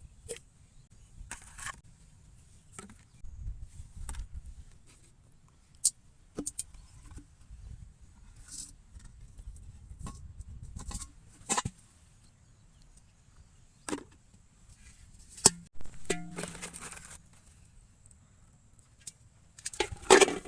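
Scattered clicks, taps and short rustles of small objects being handled, over a low rumble, with a louder clatter near the end.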